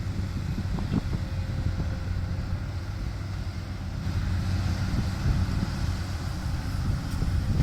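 Diesel engine of a tracked excavator running at work, a steady low drone.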